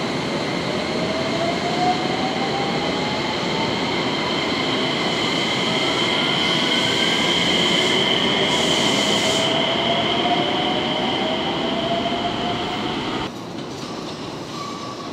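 JR West 113 series electric train standing at a platform, a steady high-pitched whine from its equipment with slowly rising tones beneath it. About 13 seconds in the sound cuts to quieter station noise.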